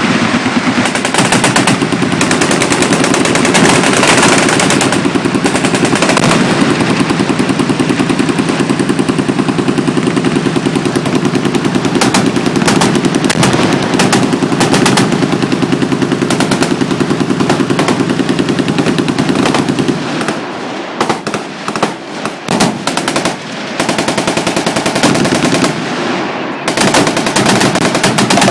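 Several machine guns firing at once in sustained, overlapping automatic fire. About twenty seconds in it thins to scattered bursts and single shots for several seconds, then the dense fire picks up again near the end.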